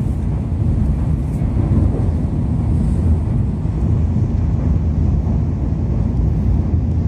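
Steady low rumble of an N700-series Nozomi Shinkansen bullet train running at speed, heard from inside the passenger cabin.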